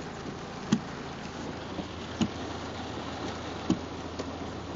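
Car windshield wipers thumping at the end of each sweep, about once every one and a half seconds, over the steady hum and hiss of a car cabin on a wet street.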